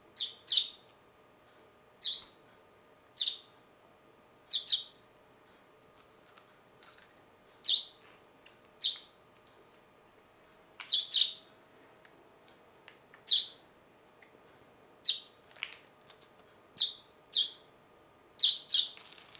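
A tame Eurasian tree sparrow chirping: short, sharp chirps, singly or in quick pairs, every second or two.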